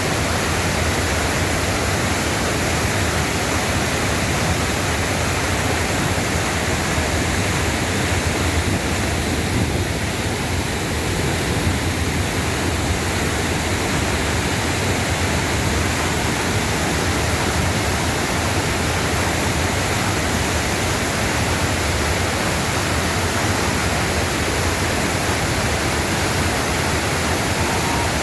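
Mountain-valley waterfall pouring steadily: a constant, even rush of falling water.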